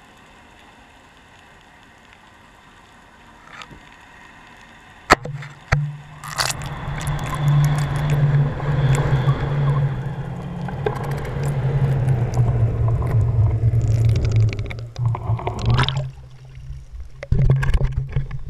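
Underwater camera housing being hauled up from the bottom: water rushes past it with a steady low hum from about five seconds in. Near the end it breaks the surface and is handled, with knocks and splashes.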